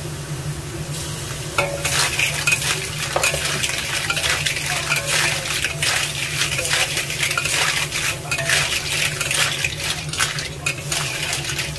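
Batik clams being stir-fried in a wok with a metal spatula: shells clattering and the spatula scraping and knocking the wok over a sizzle. The clatter starts about one and a half seconds in and keeps on irregularly.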